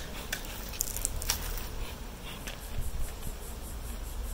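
A few short puffs from a beekeeper's bellows smoker in the first second and a half, then one more a little later, over a steady low background rumble.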